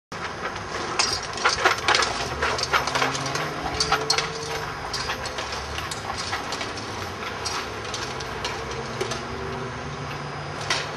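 Steel armour and weapons clinking and rattling as armoured fighters move about, many short sharp clicks, thickest in the first few seconds, over a steady low rumble.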